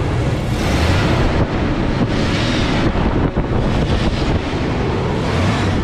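Ford Falcon ED's 4.0-litre overhead-cam inline six, freshly running again after eight years laid up, revved in about three surges: about half a second in, about two seconds in, and near the end.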